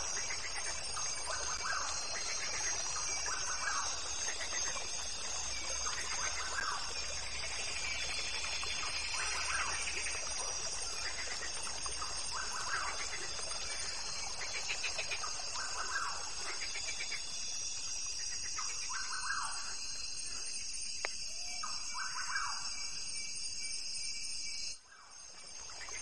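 Forest ambience soundtrack: short bird calls repeating every second or two over a steady high-pitched hum. It cuts out briefly near the end.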